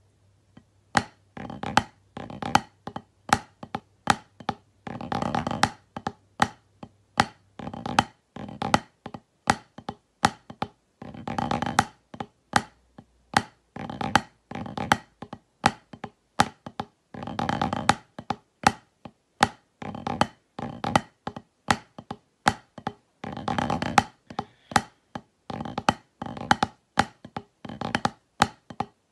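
Wooden drumsticks playing on a rubber drum practice pad: crisp separate taps broken up every few seconds by fast rolls of closely packed strokes, with brief pauses between phrases.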